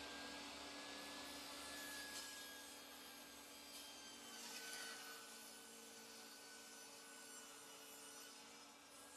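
Faint, near-silent: hands sliding and rubbing across a wooden board, with a few soft scrapes, over a faint steady hum.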